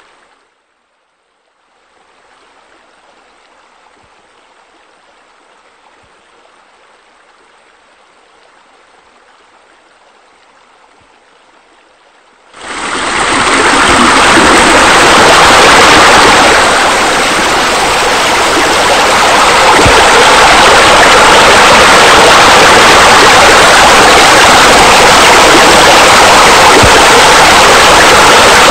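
Steady rush of running, splashing water like a pool's spillover and waterfall features. It is near silent at first and very faint for about twelve seconds, then comes in suddenly at full level and stays steady.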